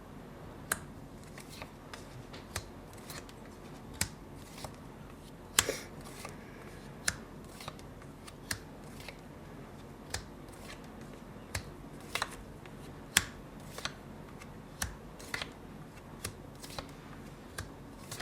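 Tarot cards being handled: irregular sharp clicks and snaps, roughly one or two a second, over faint room hum.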